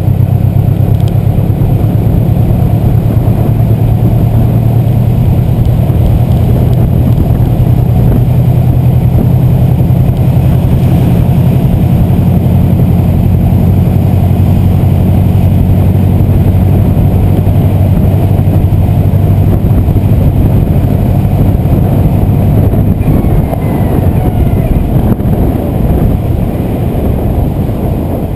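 Stage 2 Subaru WRX being driven, its engine holding a steady low drone that eases off and gets quieter about five seconds before the end.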